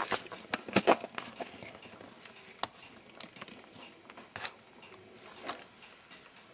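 Handling noise from hands and the handheld camera moving small objects on a hobby workbench: a flurry of clicks and rustles in the first second, then sparse faint ticks and light knocks.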